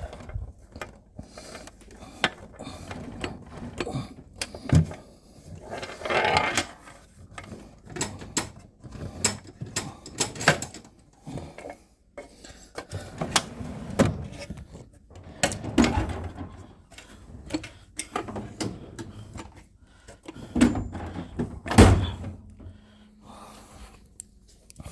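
Metal Snap-on tool chest drawers sliding open and shut, with repeated clicks, knocks and clinks of tools being handled. There are a couple of longer scraping slides, one about six seconds in and one near the end.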